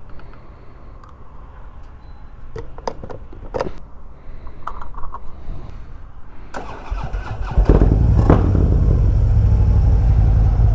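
Harley-Davidson Road King's V-twin engine, low and fairly quiet at first with a few clicks, then much louder and running steadily from about seven and a half seconds in.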